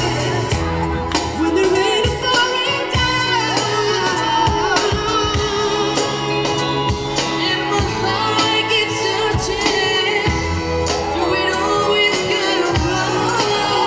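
Live band playing, with a woman singing over drums and electric bass guitar.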